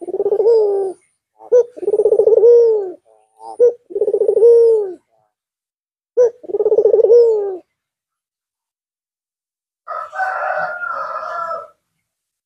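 Albino Barbary dove (puter) cooing: four calls, each a short note followed by a long rolling coo that drops in pitch at its end. About ten seconds in, a harsher, noisier sound of a different kind lasts under two seconds.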